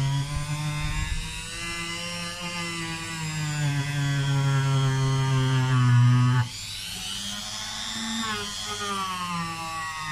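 Dremel rotary tool with a polishing attachment running at high speed, a steady whine whose pitch drifts up and down as it works. About six and a half seconds in, the sound changes abruptly: the low hum drops away and a higher, rising whine takes over.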